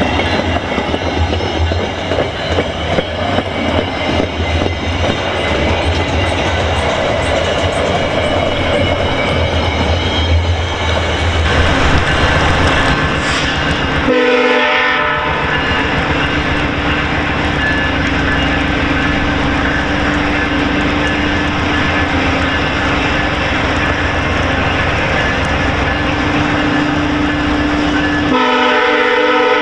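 Passenger train passing at speed, its coach wheels clattering rapidly over the rail joints. From about halfway, as the train pulls away, the GE P42DC locomotive's horn sounds in the distance as a steady held tone.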